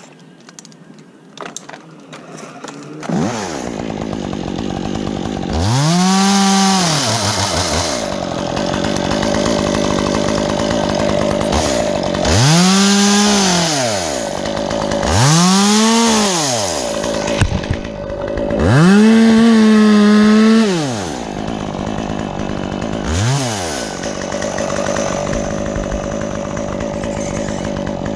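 Stihl chainsaw starting up about three seconds in, then idling between five rev-ups. Each rise and fall in pitch is a cut through small limbs, and the fourth is held longest at full speed.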